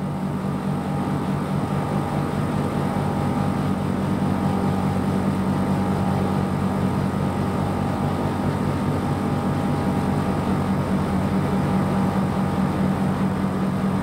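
Outdoor unit of an R410A split air conditioner running in heat mode, its compressor and condenser fan going at a good speed. It gives a steady, unchanging hum with a strong low tone and a fainter higher tone.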